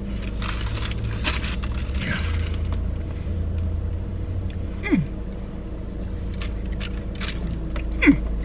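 Steady low rumble of an idling vehicle with faint scattered clicks. Two short falling hums, like a person's 'mm', come about five and eight seconds in.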